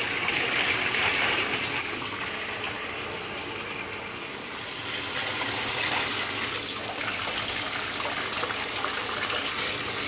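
Water running steadily into a bathtub from the tap, a little louder in the first two seconds.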